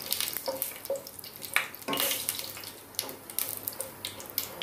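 Whole spices (bay leaf, dried red chillies, cumin seeds and cardamom) sizzling and crackling with irregular pops in hot mustard oil, while a wooden spatula stirs and scrapes them around the pan.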